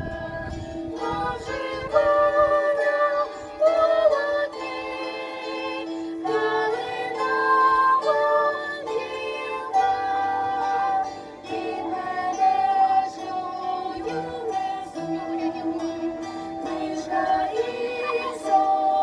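A children's bandura ensemble playing, the plucked strings of the banduras under young voices singing a melody in held notes.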